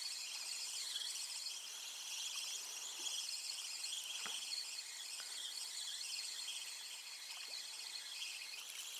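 Steady, high-pitched chorus of chirping insects such as crickets, pulsing continuously, with a few faint soft clicks about three, four and seven seconds in.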